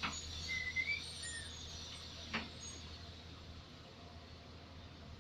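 Heavy-equipment diesel engine running with a low, steady hum. A couple of sharp clicks come near the start and again about two and a half seconds in, with a brief high chirp in between.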